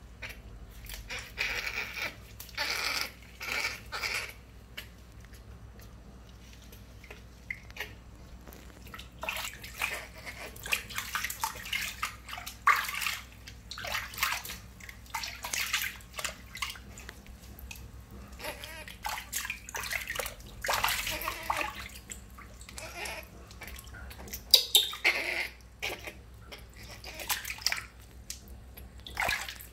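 Water splashing and sloshing in a basin as a newborn monkey is washed by hand, in irregular bursts of splashes.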